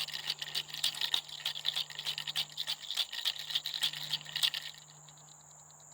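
A handful of small hard objects shaken like a rattle: fast, irregular clicking and rattling that stops suddenly about five seconds in.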